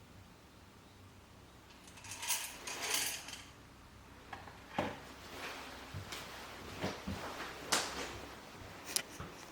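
Hands handling coffee-roasting gear: a short rattling rustle about two seconds in, then a string of separate sharp clicks and knocks of parts and containers being set down and fitted.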